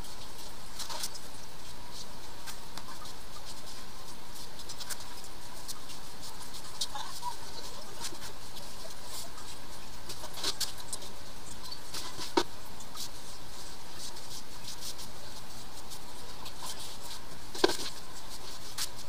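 Scattered light clicks, taps and small squeaks of gloved hands and tools working on a ceramic toilet and tiled floor, over a steady hiss, with a sharper knock about twelve seconds in and another near the end.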